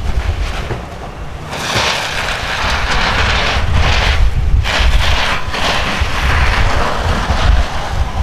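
Wind buffeting the microphone: a heavy, uneven low rumble, with a gusting hiss that swells about a second and a half in and rises and falls.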